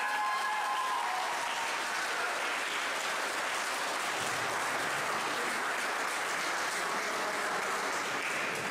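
Audience clapping steadily, with a brief voice at the start.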